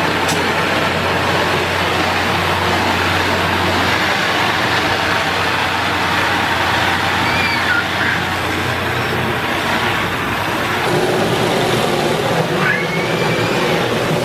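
Garden hose with a spray nozzle running, a steady hiss of water filling a plastic kiddie pool.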